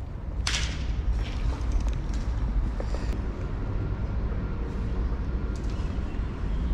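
Steady low rumble, with one sharp hit about half a second in and a few faint ticks after it.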